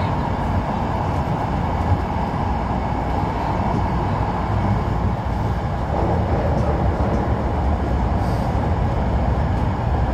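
Hankyu subway train running at speed through a tunnel, heard from inside the front car: a steady rumble of wheels on the rails.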